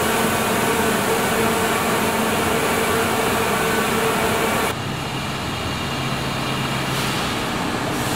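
Steady mechanical hum of CNC machining centres running in a machine shop, with a few held tones over a noisy background. About halfway through it changes abruptly to a slightly quieter, lower-pitched hum.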